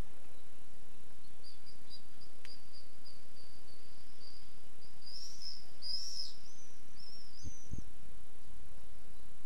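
A small bird singing: a thin, high trill, then louder warbling chirps that bend up and down in the second half. Two short low bumps come near the end.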